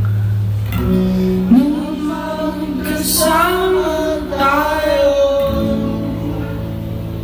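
Live recording of a man singing a slow song with acoustic guitar, his voice rising and holding notes in a few phrases over steady guitar chords.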